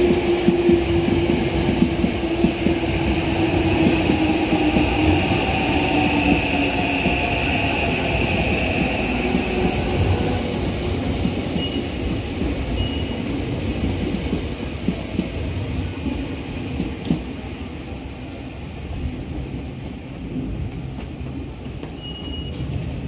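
Tokyo Metro 8000-series electric train running through the station without stopping: a steady rumble of wheels on rail with a motor whine that falls in pitch over the first few seconds, fading gradually as the train moves away.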